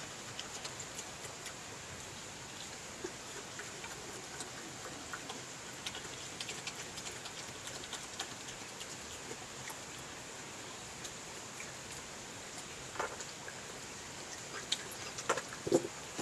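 European badger eating chips at close range: a run of small wet clicks and smacks of chewing over a steady hiss, with a few louder clicks near the end.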